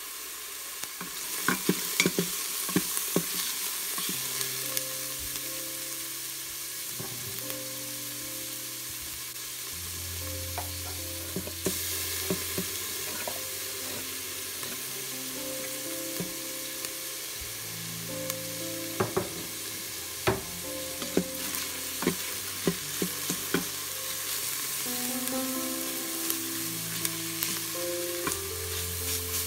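Diced onion and garlic sizzling in oil in a stainless steel pot, with a wooden spoon scraping and clicking against the pot as it stirs them. Soft background music with a slow, held melody plays underneath.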